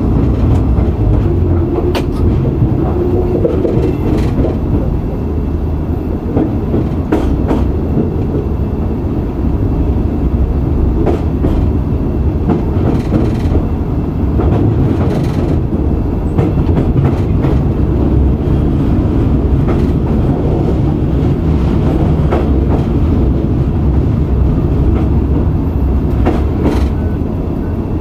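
SNCF X72500 diesel railcar running along the line, heard from inside its driving cab: a steady diesel drone and rumble of wheels on rail, with occasional sharp clicks.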